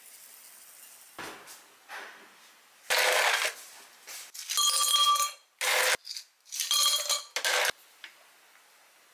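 Ice cubes tipped from a plastic scoop into a tall glass, clattering and clinking against the glass in several loud bursts with a bright ring, after a couple of softer knocks.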